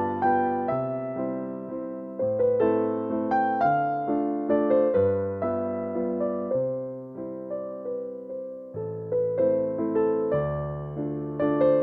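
Background music: a piano melody over low bass notes, each note struck and then fading.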